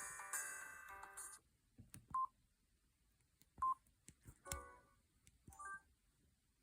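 Samsung SGH-G600 mobile phone: a preloaded ringtone melody stops about a second in, followed by a few keypad beeps and button clicks, two short single beeps and two brief multi-note tones.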